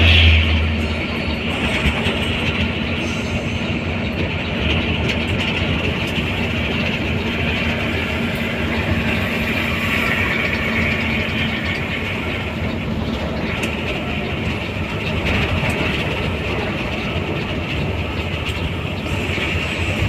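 Steady running noise inside a moving bus: tyre and road rumble, wind and engine, with a constant low hum. A brief heavier low rumble comes right at the start.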